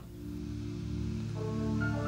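Instrumental background music: held notes begin as a new passage starts, and higher notes join about one and a half seconds in.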